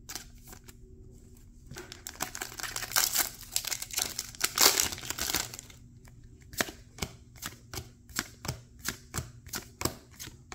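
Foil wrapper of a Weiss Schwarz booster pack crinkling loudly for about four seconds as it is opened and handled. After that, trading cards are flicked through one at a time, a short snap about three times a second.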